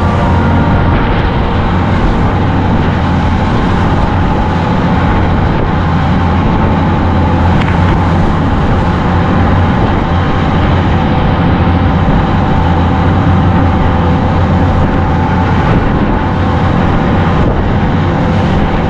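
Boat engine running at a steady speed: a loud, constant low drone.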